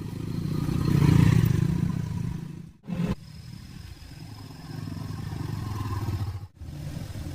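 Engine of a small tractor running, in short clips cut together, loudest about a second in and broken off suddenly twice.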